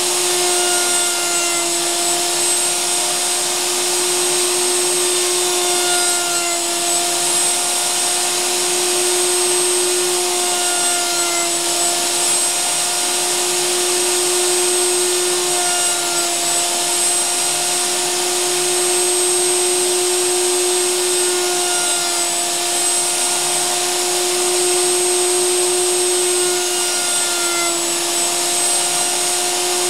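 Table-mounted wood router running steadily at high speed as a wooden shelf blank is pushed into the spinning bit for cross cuts. The motor's whine dips slightly in pitch about every five seconds as the bit bites into the wood.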